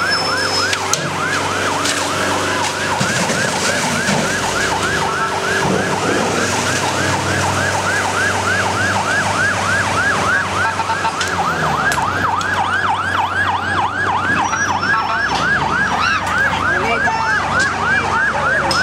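Fast yelp siren of an armoured police water-cannon truck, its pitch sweeping up and down several times a second without a break, with a steady low hum underneath.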